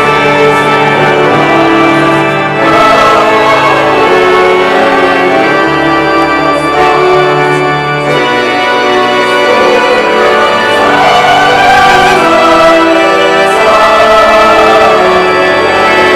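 Church choir singing a choral anthem with keyboard accompaniment: long, held chords with vibrato in the voices, growing fuller in the second half.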